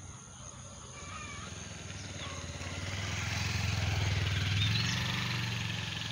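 A motor engine humming steadily at a low pitch, growing louder over the first few seconds and easing off slightly near the end.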